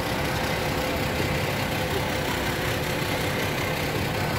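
Diesel passenger train standing at the platform, its engine idling with a steady low drone.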